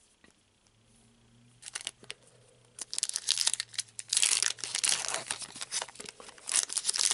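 Foil wrapper of a Pokémon TCG booster pack being torn open and crinkled. It starts about a second and a half in and gets louder and busier from about three seconds on.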